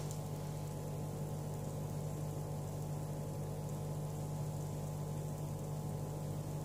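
Steady low hum with a faint even hiss underneath, unchanging throughout.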